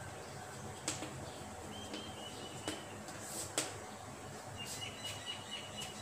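Chalk writing on a chalkboard: a few sharp taps and short scratches of chalk against the board, faint, about a second or two apart.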